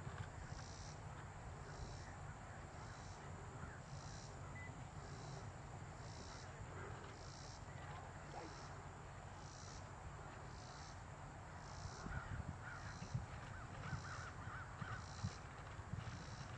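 Faint outdoor background: a high chirping that pulses about one and a half times a second throughout, with a few short animal calls and low thuds in the last few seconds.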